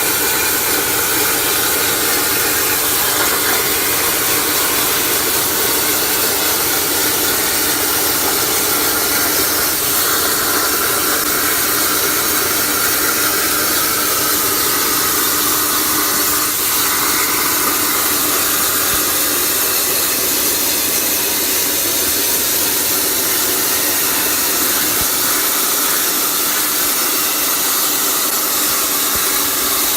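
CNC plasma cutter's torch cutting steel plate: a loud, steady hiss with faint steady tones running through it.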